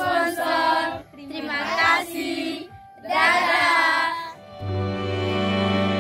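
A group of children calling out together in chorus, a greeting and then a thank-you and goodbye, in three loud bursts. Just past the middle the voices stop and sustained instrumental music with long held notes comes in.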